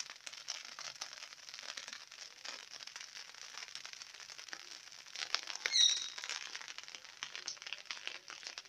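Light rain falling on a rooftop garden: a faint, even hiss of fine crackling drops. There is one brief high chirp about six seconds in.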